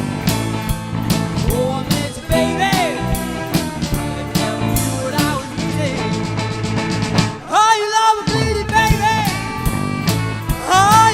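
Blues band playing live, with drum kit, bass and guitars and bending lead lines. The bass and drums drop out for a moment about seven and a half seconds in.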